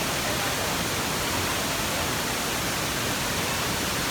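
Steady, even rush of falling water from Mantayupan Falls, a 96-metre waterfall, heard close to its pool where the current is strong.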